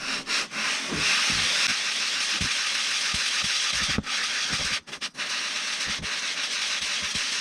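Aluminium cylinder of a Yamaha RD50 being rubbed in circles on 400-grit wet sandpaper over a sheet of glass: a steady scratchy hiss, with brief breaks about four and five seconds in. The cylinder's head mating surface is being lapped flat.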